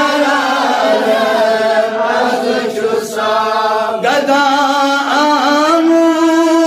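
A man singing a manqabat (Islamic devotional poem) unaccompanied, holding long notes with melodic ornaments and brief pauses for breath.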